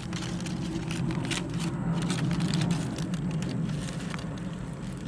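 Paper wrapper crackling and rustling as a wrapped cheesesteak sandwich is handled and turned over, over a steady low hum.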